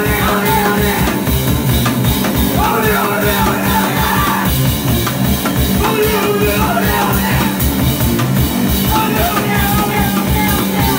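A live indie-punk band playing loudly: drum kit keeping a fast, steady beat under electric guitars, with pitched lines over it that may be voice or guitar.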